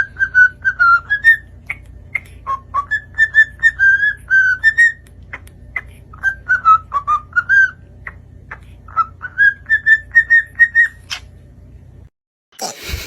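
A pet parrot whistling a tune: phrases of short, clear whistled notes that step up and down in pitch, with a brief harsh squawk-like sound near the end.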